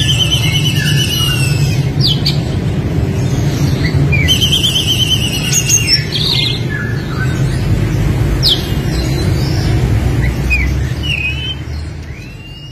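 Oriental magpie-robin singing a loud, varied song: repeated trilled runs and sharp whistled notes sweeping up and down, over a steady low rumble. The sound fades out near the end.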